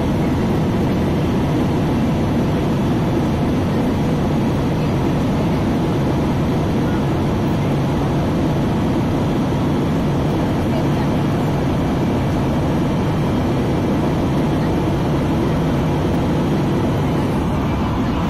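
Steady low cabin noise of an airliner in flight, the engine and airflow noise heard from inside the passenger cabin, unchanging in level.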